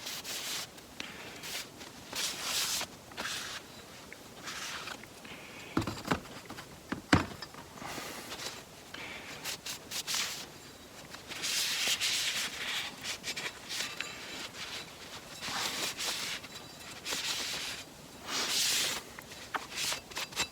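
Hands working on automatic-transmission parts on a bench: intermittent rubbing and rustling, with two sharp knocks of metal parts about six and seven seconds in.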